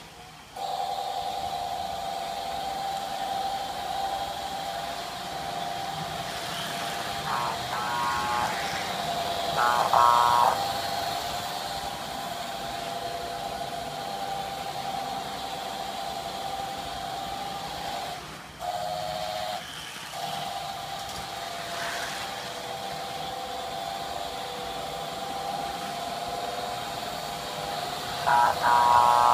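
American Flyer S-gauge toy trains with Gilbert Alco PA diesel engines running on the layout: a steady electric hum and whir under the track noise. A few short, buzzy diesel-horn blasts come about a quarter and a third of the way in, and again near the end.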